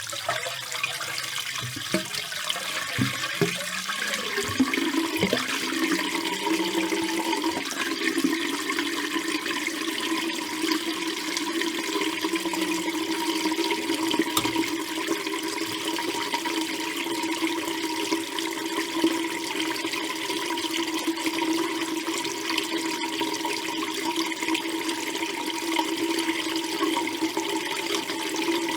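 Bathtub water running down the drain: uneven gurgles for the first few seconds, then a steady rush of draining water with a steady tone running through it.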